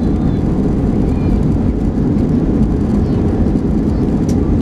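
Steady, loud rumble inside the cabin of a Boeing 737-700 slowing down on the runway after touchdown, with its ground spoilers raised: engine and airflow noise mixed with wheels rolling on the pavement.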